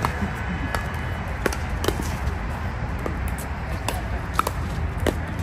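Pickleball paddles hitting a plastic pickleball during a doubles rally: a string of sharp pops at irregular intervals, roughly every half second to second, over a steady low background rumble.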